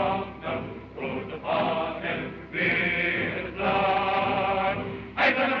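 A chorus singing a German march song, the voices sustaining two long notes in the middle of the passage and striking shorter, sharper notes near the end.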